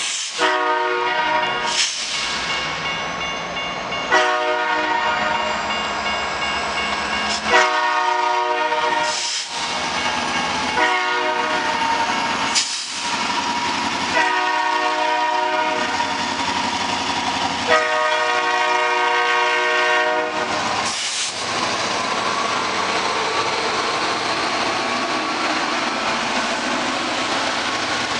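BNSF GP39-2 diesel locomotive's multi-note air horn played as a horn show: six blasts of varying length, the last two the longest. The horn stops about 20 seconds in, and the train's wheels and engines rumble past.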